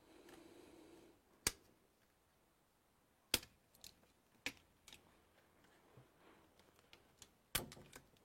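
Scattered sharp clicks and taps of small tools and plastic parts being handled while a sat-nav is taken apart, about half a dozen spread irregularly over several seconds, after a brief soft rustle at the start.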